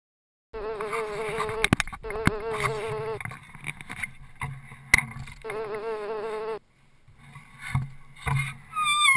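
A flying insect buzzing at a steady pitch with a fluttering edge, in two bouts: one of about two and a half seconds, then, after a pause, a shorter one of about a second. A few sharp clicks fall among the buzzing, and near the end a wavering high whistle-like tone begins.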